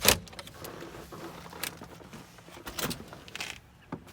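Hand-tool and part-handling noises on a car door: a sharp knock at the start, then low scraping and a few soft scattered clicks.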